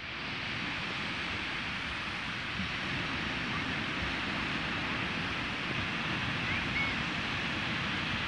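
Small sea waves breaking and washing up a sandy beach: a steady surf hiss, with wind buffeting the microphone.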